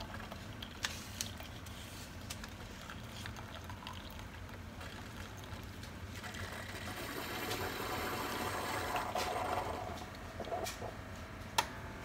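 Keurig single-serve coffee maker brewing a large cup: coffee streams steadily into the mug, growing louder from about six seconds in and dropping off near the end of the brew, followed by a single sharp click.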